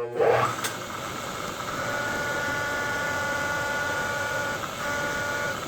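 Supermax milling machine spindle starting up with a short rising whine, then running steadily while a 3/4-inch end mill is fed into a 416 stainless steel blank.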